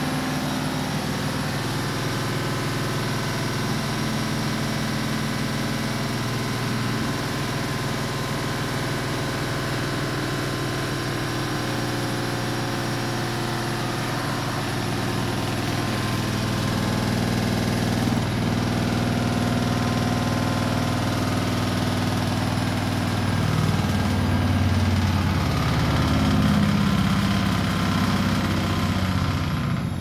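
Front-loading washing machines running in a spin cycle: a steady mechanical hum of drum and motor. It grows a little louder about halfway through, and near the end the pitch swoops up and down a few times as the drum speed shifts.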